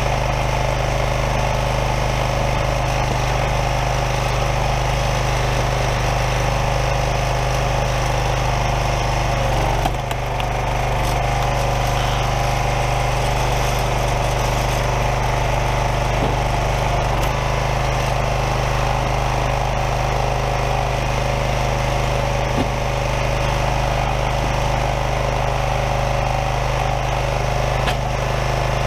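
Craftsman 27-ton log splitter's small gas engine running steadily, with a brief drop in its sound about ten seconds in.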